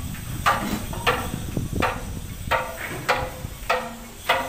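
Hammer striking steel in a steady rhythm, about one ringing blow every 0.6 seconds, with wind buffeting the microphone.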